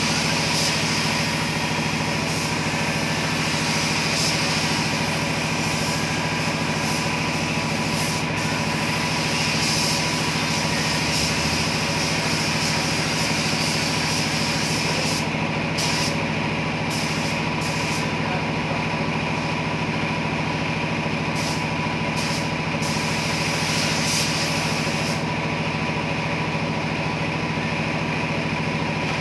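A machine running with a steady hum, with a high hiss over it that cuts out several times in the second half and stops near the end.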